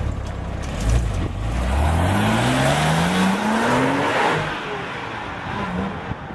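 Porsche 911 Turbo's twin-turbocharged flat-six accelerating hard, its note climbing steadily for about three seconds, then dropping away a little after four seconds in.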